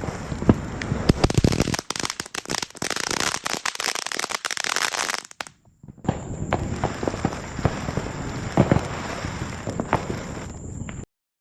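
Small consumer fireworks going off: a dense run of rapid crackling pops for a few seconds, then scattered sharper pops. The sound cuts out abruptly near the end, as the recording mic drops out.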